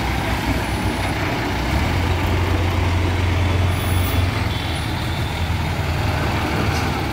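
Diesel engine of an Escort Hydra pick-and-carry crane running as the crane drives past, its low engine note growing louder from about two seconds in and easing after about four and a half seconds.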